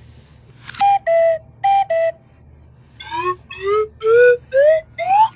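Whistle-like tones: two pairs of high-low notes, then a run of five short notes, each gliding upward and higher than the last.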